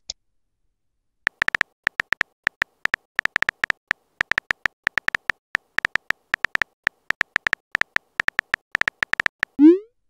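Phone-keyboard typing sound effect: many quick, irregular taps, each a short high-pitched beep, for about eight seconds. Near the end comes a short rising swoop as the message is sent.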